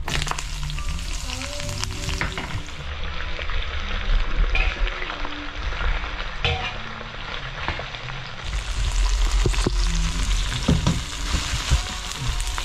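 Chopped red pepper and red onion sizzling in hot olive oil in a stainless steel wok, starting sharply as they are tipped in, with the clicks and scrapes of a spatula stirring them against the metal.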